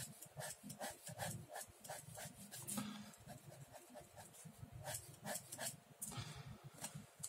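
Ballpoint pen sketching on a sketchbook page: an irregular run of short, faint scratching strokes, some in quick clusters.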